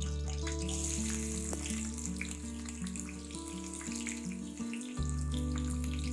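Background music with a steady bass line and a melody of held notes, over the hiss of tempering ingredients frying in hot oil in a kadai. The bass drops out briefly about five seconds in.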